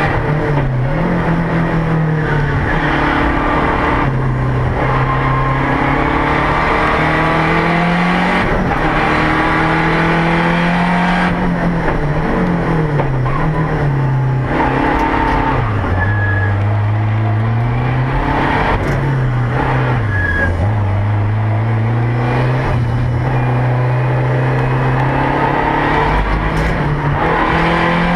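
Lancia Delta rally car's engine heard from inside the cabin under hard driving. Its note climbs and drops again and again as it is revved out and shifted or lifted through the corners, over loud road and drivetrain noise.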